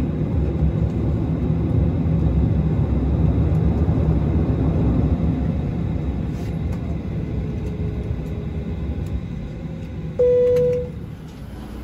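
Inside the cabin of a Boeing 737-700: the low rumble of its CFM56-7B engines winding down, fading steadily after arrival at the gate. About ten seconds in, a short, loud single tone sounds and cuts off.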